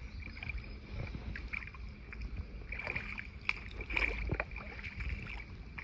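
Small splashes, drips and light knocks of water and paddle around a kayak on a river, over a low steady rumble, with a few sharper clicks in the second half.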